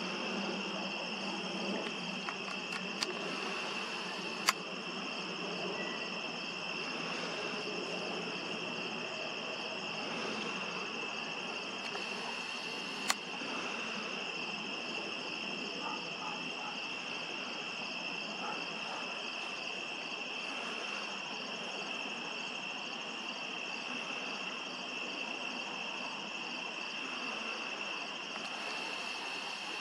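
Night chorus of crickets and other insects: a steady high trilling with a faster pulsing layer above it. A few sharp clicks cut through it, the loudest about four and a half and thirteen seconds in.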